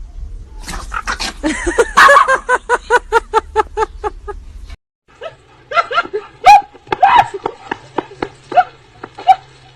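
A dog yelping in a fast, even series of about four high cries a second. The sound cuts off suddenly near the middle, then comes back as irregular sharp barks and yelps.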